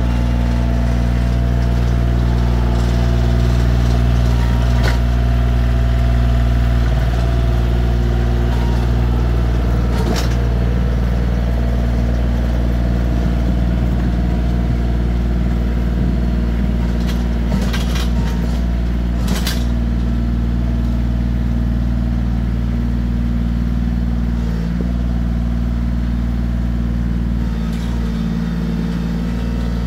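Bobcat CT2025 compact tractor's diesel engine running steadily under load as it pulls a rear box blade through dirt. There are a few sharp clanks about a third of the way in and again past the middle, and the engine grows slightly fainter near the end as the tractor moves away.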